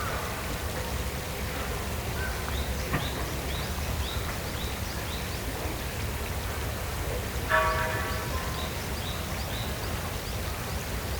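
Outdoor nature ambience with steady background hiss and a low hum. A bird repeats a short high rising chirp about twice a second for a few seconds. About seven and a half seconds in, a louder, harsher call lasts about half a second.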